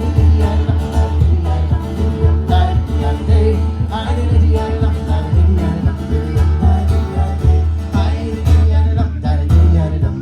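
Live folk band playing a traditional Irish drinking song: strummed acoustic guitar over a steady bass and beat.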